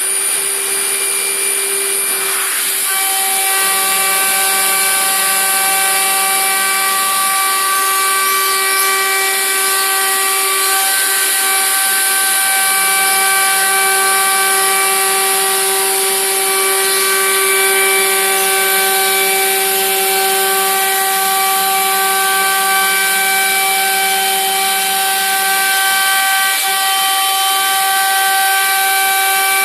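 Tekcel VSR CNC router running at high speed: a steady high-pitched spindle whine over a loud hiss, with more overtones coming in a few seconds in.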